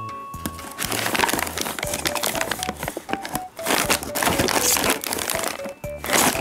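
Plastic snack bags crinkling and rustling as a hand digs through them and lifts one out, starting about half a second in, over light background music.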